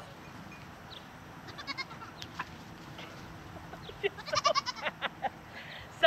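Goats bleating: a short, quavering bleat about four seconds in and a briefer one soon after, with a few faint chirps and ticks before.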